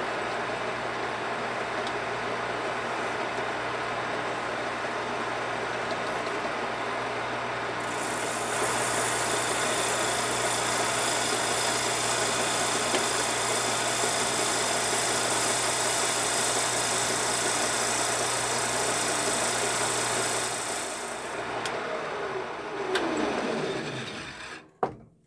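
Shopsmith Mark V running a homemade sanding drum, its motor humming steadily, while a pencil spun in a cordless drill is held against the sandpaper. A louder hissing grind joins about eight seconds in. Near the end the machine shuts off and winds down, its pitch falling.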